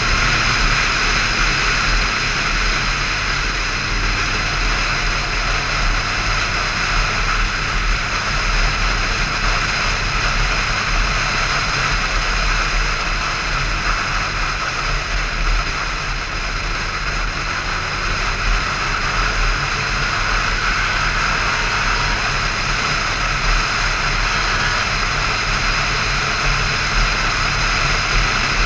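Steady wind rush over a motorcycle-mounted microphone at cruising speed, with the motorcycle's engine droning underneath.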